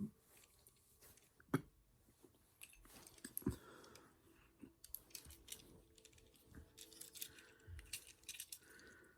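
Small plastic Lego pieces clicking and rattling as they are handled and pressed together, in a few sharp clicks with soft rustling between.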